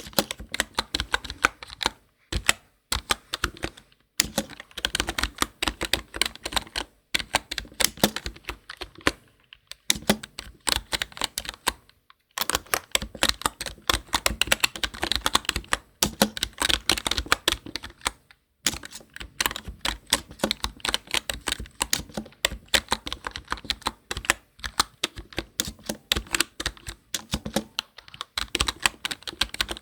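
Typing on a computer keyboard: fast, continuous key clicks with short breaks every few seconds.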